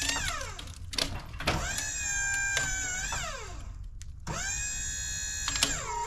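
Wood-Mizer LT35 sawmill's hydraulic pump whining as the hydraulics move the log on the bed. Its pitch sags under load several times and climbs back when released, and it cuts out briefly twice. A steady low rumble runs underneath.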